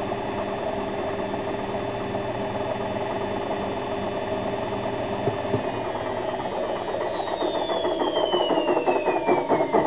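Washing machine running with a steady hum and a high whine. A little past halfway the whine begins to fall steadily in pitch, and near the end a fast pulsing knock builds up and grows louder.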